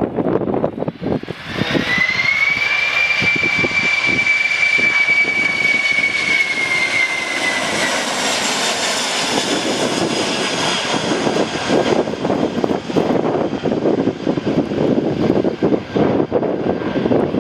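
Twin-turbofan Boeing 767 jet engines whining as the airliner passes close by. The high whine swells in about a second in, holds steady, then drops in pitch around eight seconds in as it goes past. Gusty wind buffets the microphone throughout.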